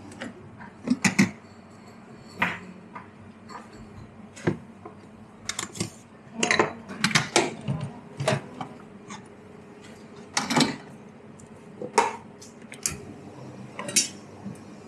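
Cups, saucers and metal barista tools clinking and knocking as they are handled, an irregular run of sharp strikes with short rings.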